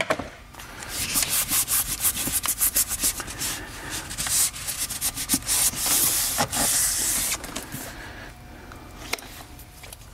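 Hands rubbing and smoothing a sheet of sound-deadening mat down onto a car door panel: quick, scratchy rubbing strokes that die down about three-quarters of the way through.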